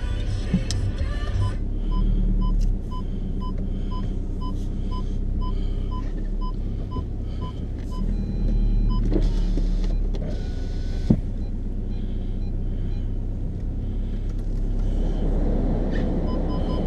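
Car engine and road noise heard from inside the cabin, a steady low rumble. A short electronic tick repeats about twice a second through the first half and starts again near the end. There is one sharp knock about eleven seconds in.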